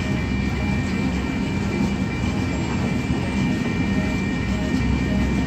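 Freight cars of a long train rolling past, the steady noise of wheels on rails, with a thin steady high tone running through it.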